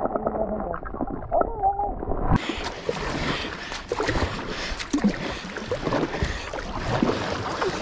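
Muffled, dull sound with the microphone under the river water for about the first two seconds; then the sound suddenly opens up as it comes out of the water, and a kayak paddle dips and splashes with water rushing and dripping around the hull.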